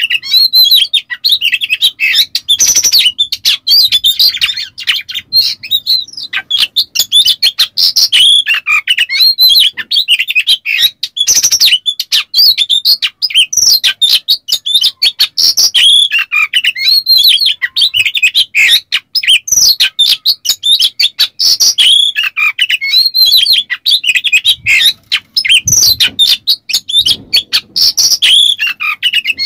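Oriental magpie-robin singing a loud, unbroken song of rapid, varied whistled notes mixed with short, harsh rasping calls.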